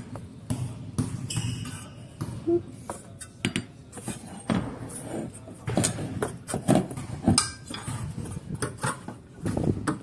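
Irregular clicks, knocks and clinks of hands handling tools and parts, with the rubbing of a phone being moved about.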